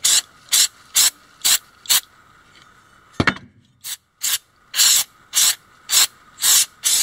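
Aerosol spray can hissing in short, repeated bursts, about two a second, as foam is sprayed onto a steel axe head. A single sharp knock comes a little after three seconds, then a brief pause before the bursts resume, a few of them longer.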